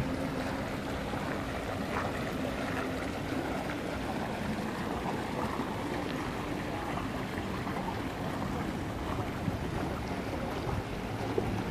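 Small basin fountain's jet churning and splashing up through the surface of its brimming basin, a steady watery bubbling. The jet is drowned in its own overfull basin, so the water heaves and gurgles instead of spraying, close to running over the rim.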